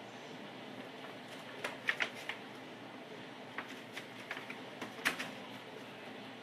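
Pomeranian puppy's claws scratching and clicking on a shopping bag as it scrambles about inside it, in irregular bursts of quick taps and scrapes, loudest around two seconds in and again about five seconds in.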